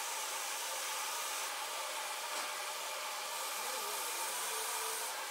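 Narrow vertical belt sander running steadily while a small block of wood is held against the belt and sanded.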